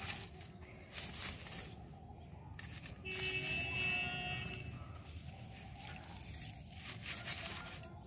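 Dry coconut coir fibres rustling and crackling as they are handled and pressed over the soil in a plastic pot, in short irregular strokes. About three seconds in, a steady high tone sounds for about a second and a half.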